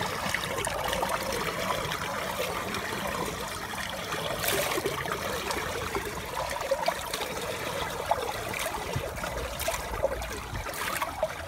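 Water trickling steadily, a continuous crackly running-water sound with a few brief sharper splashes.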